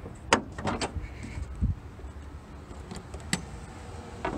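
Several sharp clicks and knocks of hands working on a van's front end, with a low thump about one and a half seconds in and another sharp click past the three-second mark.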